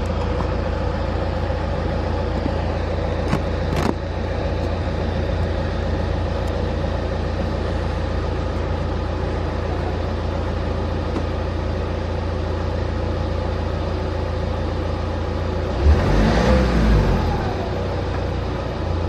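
Tata Safari Storme diesel engine heard at the tailpipe, idling steadily just after a cold start. About three seconds before the end it is blipped once, its pitch rising and falling back.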